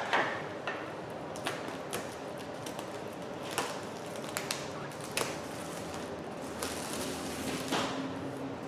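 Clear plastic shrink wrap being cut and pulled off a cardboard box: scattered crinkles, taps and clicks.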